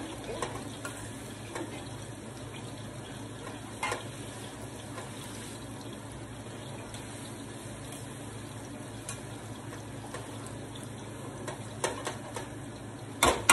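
Ripe plantain slices frying in oil in a pan, a steady sizzle, with a metal spoon scraping and knocking in a pot as rice is stirred. A sharp clank comes near the end.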